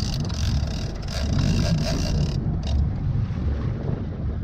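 A boat's engine running with a steady low rumble, with wind on the microphone; a hiss of wind or spray fades out about halfway through.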